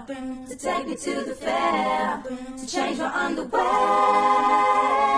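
A woman singing a cappella with no instruments, her voice layered in several overdubbed parts; about three and a half seconds in the voices settle onto one long held note.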